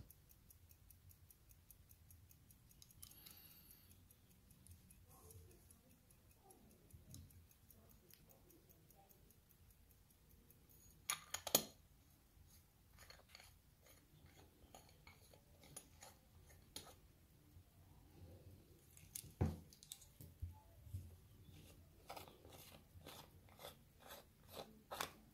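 Antique pocket watch ticking faintly with a quick, even beat, while its metal case is handled with sharp clicks and snaps, the loudest about eleven seconds in and a run of them near the end.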